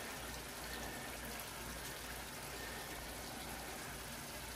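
Spaghetti and broccoli in a frying pan on low heat, sizzling and simmering with a steady, quiet hiss.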